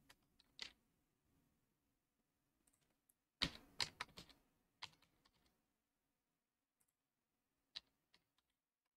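Computer keyboard typing, quiet: a couple of single key clicks, then a quick run of about a dozen keystrokes about three and a half seconds in, then a few more scattered keys near the end.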